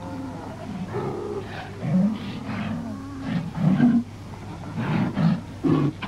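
New Zealand sea lions calling in a colony: a run of separate, drawn-out pitched calls, several overlapping, one after another about every second.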